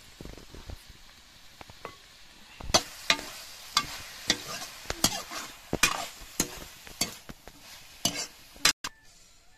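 Metal ladle scraping and knocking around a steel wok as frying meat curry is stirred, in quick strokes about two a second starting about three seconds in and stopping abruptly near the end, over a faint sizzle.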